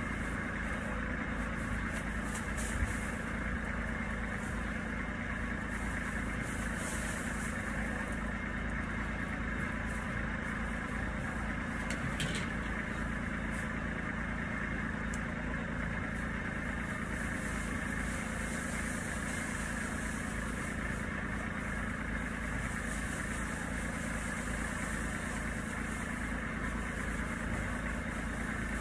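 An engine idling steadily, a low even drone, with a couple of faint knocks.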